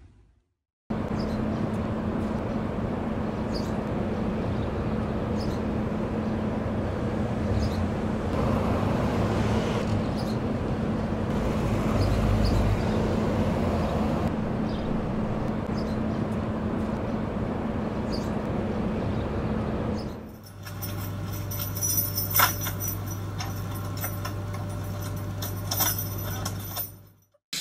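Steady car cabin noise with a constant low hum for most of the time. About twenty seconds in it gives way to a lower steady hum with many small clicks and rattles of car keys being pulled at in the ignition.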